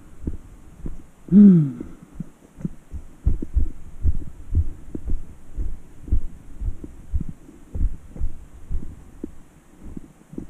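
Footsteps walking down a steep dirt trail, heard as low thuds about two to three a second, with a short falling grunt about a second and a half in.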